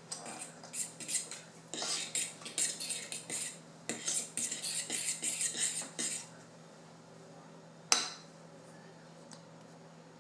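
A whisk beating vanilla into a thick cooked flour-and-milk paste in a bowl: quick clinking strokes against the bowl for about six seconds. Then a single sharp knock, the loudest sound, comes about two seconds later.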